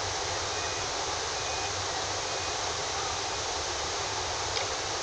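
Steady, even rushing noise with no distinct events, typical of wind on an outdoor microphone.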